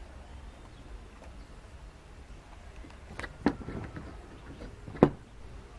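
Handling knocks on a wooden work board, like a hot glue gun being set down: a light click, then two sharp knocks about a second and a half apart, the second the louder, over a low steady background rumble.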